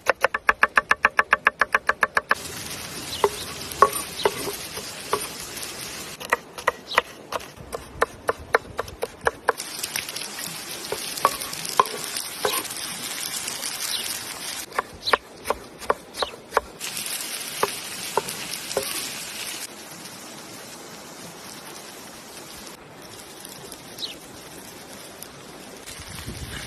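Food sizzling in a pan, the hiss switching on and off several times, with scattered sharp clicks of a utensil stirring against the pan. In the first two seconds, a fast even tapping at about nine strokes a second.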